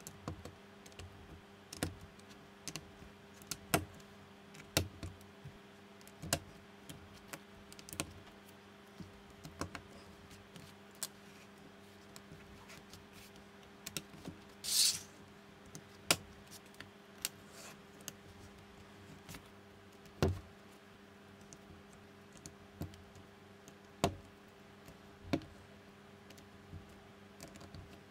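Small plastic building bricks clicking as they are pressed together and set down by hand, in irregular sharp clicks about one or two a second. A brief scraping rustle about fifteen seconds in.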